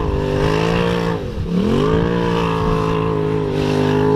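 Turbocharged Polaris RZR side-by-side's engine running hard at high revs. The revs dip sharply about a second and a half in as the throttle comes off, climb straight back and hold steady, then start to fall near the end.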